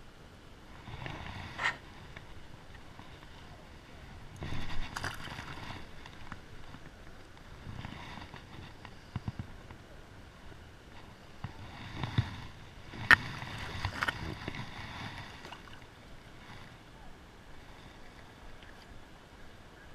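River water splashing and sloshing around hands and a hybrid striped bass being held in the water and released, in several swells with sharp slaps, the loudest about two-thirds through; quieter near the end.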